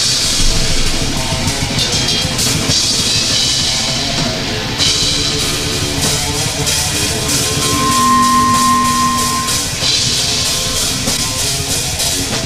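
Improvised heavy metal jam played loudly on a drum kit, with dense cymbal crashes and drum hits. A single held note sounds for about a second and a half, about eight seconds in.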